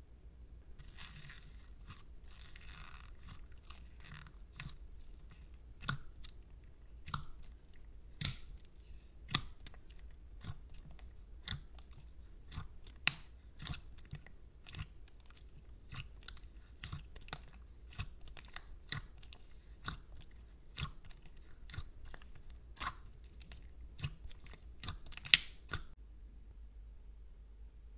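Thick creamy slime squished and poked by hand, giving sharp irregular sticky clicks and pops about one or two a second. A denser crackling comes in the first couple of seconds, and the pops stop shortly before the end.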